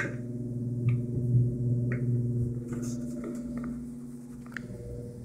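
A metal toilet-stall door latch clicks sharply, followed by a few lighter clicks and knocks about once a second, over a steady low hum.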